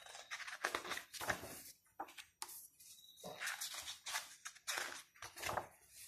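Pages of a large photobook being turned by hand: a series of irregular paper rustles and swishes as the sheets are lifted, flipped and smoothed flat.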